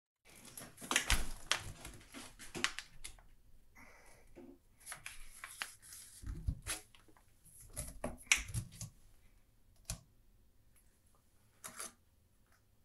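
Handling of PVC pipe and fittings on a workbench during solvent cementing: scattered light knocks, clicks and scraping as the primed and cemented pipe is worked and set down on a paper bag.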